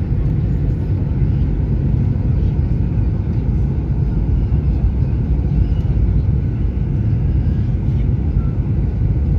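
Steady low rumble of engine and airflow noise inside a jet airliner's cabin during the descent to landing.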